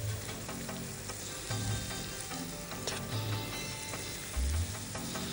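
Okonomiyaki batter with shredded cabbage, meat and mushrooms sizzling on a hot griddle as it starts to cook, with a single light click about three seconds in.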